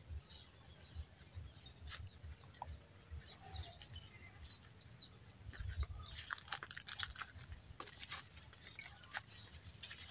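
Faint farmyard ambience: birds chirping, with scattered crunching clicks from about six seconds in.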